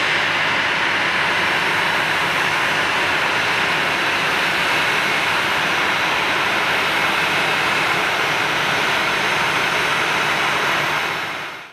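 Boeing 737-800's CFM56-7B turbofan engines running at taxi power: a steady jet rush with a thin high whine, fading out quickly near the end.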